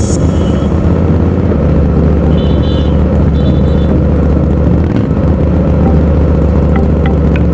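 Motorcycle engine running steadily at cruise while riding, a low, even hum with road and wind noise. Two short high tones come about three seconds in.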